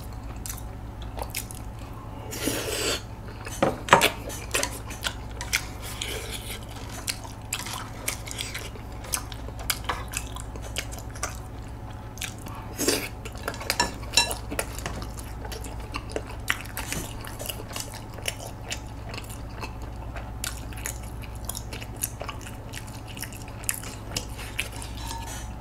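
Chewing tteokbokki, chewy rice cakes in spicy sauce, close to the microphone, with scattered sharp clicks of wooden chopsticks against a bowl; the loudest click comes about four seconds in.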